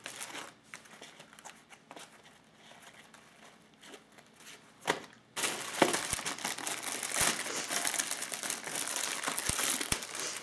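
Clear plastic packaging bags crinkling as bagged nylon gear pouches are handled and pulled open. A few light crinkles for the first five seconds, then continuous loud crinkling from about halfway through.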